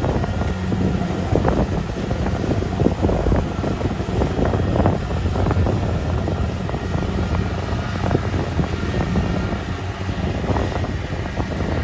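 Kubota DC-70 combine harvester's diesel engine and threshing machinery running steadily under load while harvesting through mud, a constant low drone with busy mechanical clatter over it.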